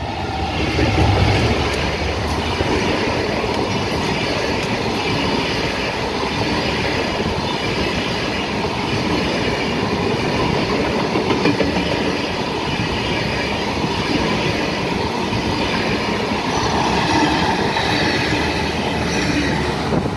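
Diesel-hauled passenger train passing close by at speed. The locomotive's engine goes past about a second in, then a long string of Spanish-built passenger coaches clatters by with steady wheel-on-rail clickety-clack.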